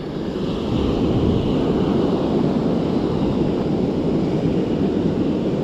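Steady wind rushing on the microphone over the wash of ocean surf, a loud even roar with no distinct events.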